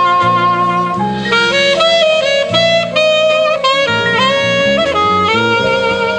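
Marching band's winds and brass playing a jazzy passage: a moving melody over sustained chords.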